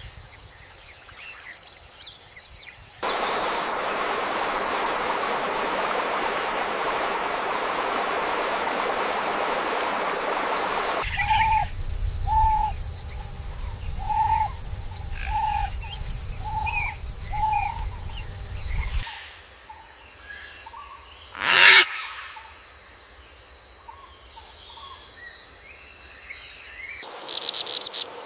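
Outdoor nature ambience that changes abruptly several times. First comes an even rushing noise for several seconds. Then a short animal call repeats about once a second over a low rumble, and finally steady high insect buzzing with one loud swoosh passing by.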